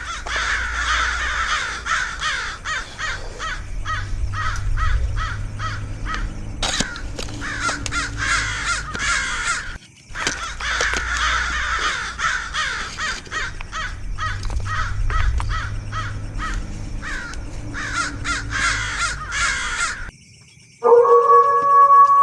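Harsh, crow-like cawing calls in rapid, falling series over a low rumble, breaking off briefly about halfway and then going on. Near the end they stop, and a long wavering howl-like tone begins.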